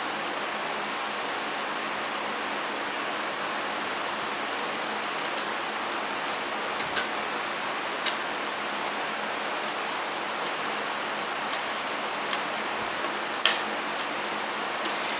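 Steady hiss with a few scattered light taps, the loudest about thirteen and a half seconds in.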